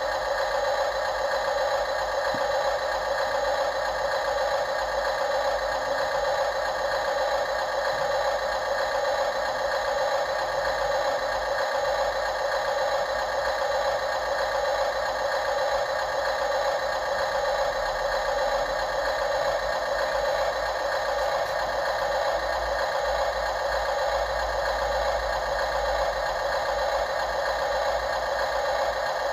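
Radio-controlled construction machine running steadily, a constant engine-like drone with a light rattle.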